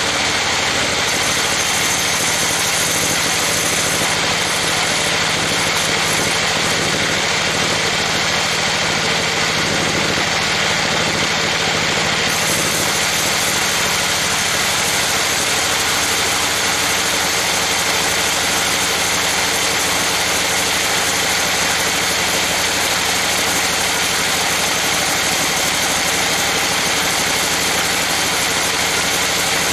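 Band sawmill running, its blade cutting lengthwise through a trembesi (rain tree) timber: a loud, steady mix of machine hum and blade hiss. The high hiss thickens about twelve seconds in.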